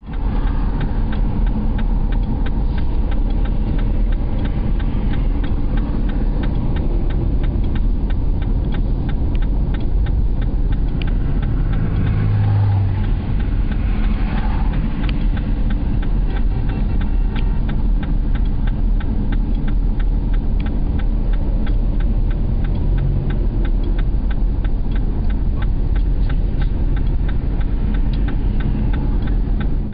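Steady road and engine noise of a moving vehicle, a constant low rumble with a fast, regular faint ticking throughout.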